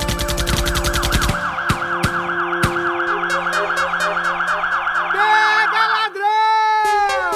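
Electronic music soundtrack: held drone tones under a fast, even clicking pulse, then a rapidly repeating rising siren-like warble, ending in several long downward-gliding tones.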